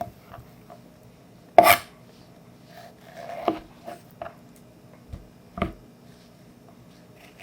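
Knife and peach pieces knocking on a cutting board as fruit is cut and handled: a few separate knocks, the loudest about one and a half seconds in, with lighter clicks and scrapes between.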